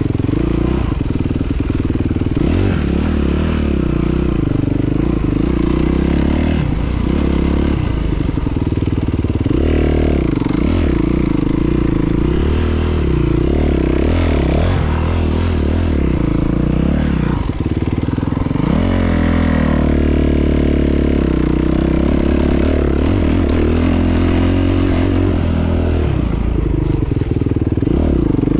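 Enduro dirt bike engine running continuously, revving up and falling back again and again as the bike is ridden off-road.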